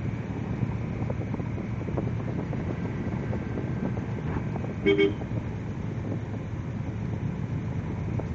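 Steady engine and tyre noise of a car driving, heard from inside the cabin. About five seconds in, a two-note car horn gives two quick toots.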